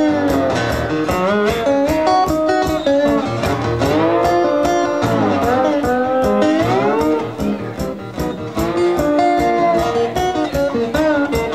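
Acoustic slide guitar playing a blues instrumental passage, with notes gliding up and down over a steady rhythm.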